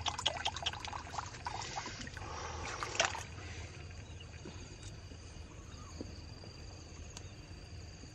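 Muddy ditch water splashing and dribbling as a blue mesh net trap is lifted, with a louder splash about three seconds in. It is quieter after that.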